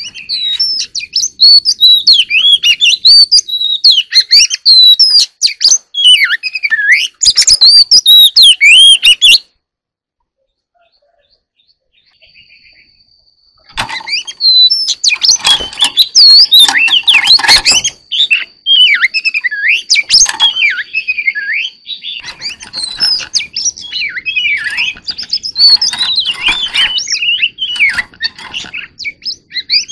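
Oriental magpie-robin singing: a loud, fast run of varied whistled phrases. The song stops for about four seconds about a third of the way in, then starts again.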